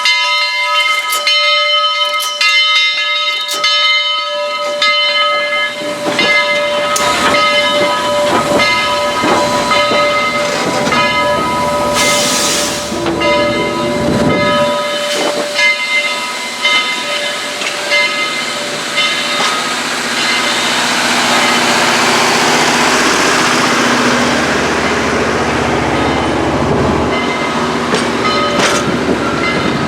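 Steam locomotive bell of Southern Railway 4501, a 2-8-2 Mikado, ringing with regular strikes, with a short burst of steam hiss about 12 seconds in. In the second half the bell fades under a building steam hiss as the engine gets under way.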